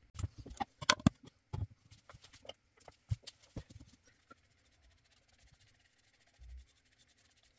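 Small metal paint tin being pried open and handled: a run of sharp clicks and knocks of the lid and tin over the first three seconds or so, then faint scrapes of a brush painting inside a wooden box, with a short low thump near the end.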